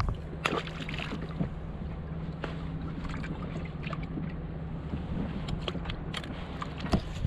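A boat engine running steadily with a low hum. Scattered short clicks and knocks sound over it.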